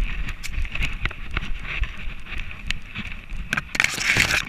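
Rubbing, rattling and wind rumble on a camera strapped to a moving dog's harness, with scattered sharp clicks and a steady hiss. A louder rushing noise comes near the end.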